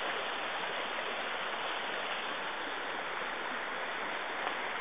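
Steady rushing of running water from a stream, an even hiss with no breaks.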